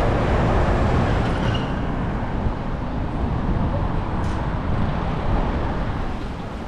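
Steady street traffic noise heard from a moving bicycle: a continuous low rumble without distinct events, easing slightly near the end.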